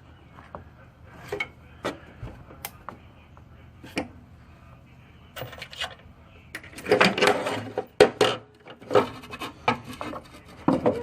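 Hand work on a car's accelerator pedal assembly while bolting it in: scattered clicks and knocks of metal parts and tools, with louder rubbing and scraping handling noise about halfway through.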